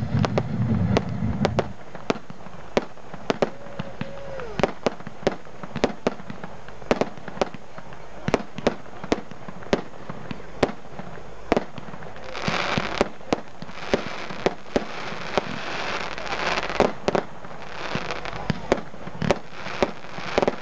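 Fireworks display: a steady run of sharp bangs from bursting aerial shells, about one to two a second. In the second half there is a stretch of dense crackling lasting several seconds.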